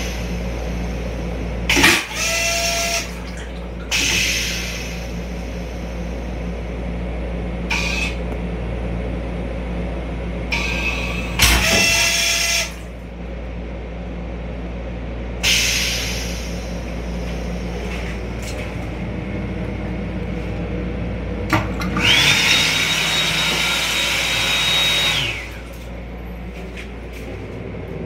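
Steady low hum inside the restroom of a Metro-North M7 electric railcar, broken by short bursts of hiss, the strongest about two seconds in and around twelve seconds. About twenty-two seconds in comes a louder three-second hiss with a steady high whistle.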